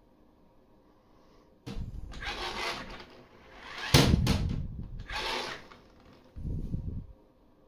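Plastic lid mechanism of a sensor-lid trash can: scraping and clattering as the lid lifts open, with a sharp click about four seconds in and a dull thump near the end. The owner says this bin's lid does not open automatically as it should.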